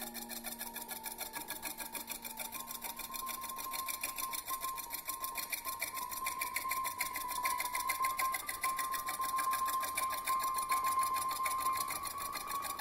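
Slitting saw on a small milling machine cutting into a metal block: a rapid, even chatter from the saw teeth with a steady high whine from the spindle, growing a little louder partway through.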